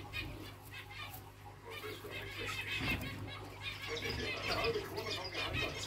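Chinese dwarf quail (king quail) giving a run of quick, high chirping calls, thickest from about two seconds in, over a low steady hum.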